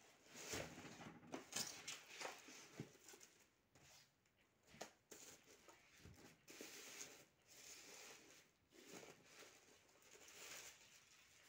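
Faint rustling and crinkling of a plastic bag and foam packing as a small projector is lifted out of its box insert and unwrapped, with scattered light clicks and bumps from handling.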